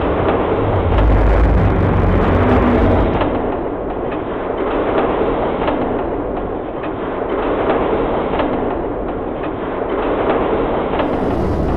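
Dense battle sound effects: a continuous rumble packed with many rapid sharp cracks, like sustained gunfire and artillery.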